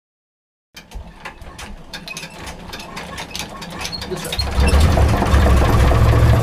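Silence at first, then a boat's small inboard engine being worked to start with irregular mechanical clicks and rattles. It catches about four and a half seconds in and runs steadily.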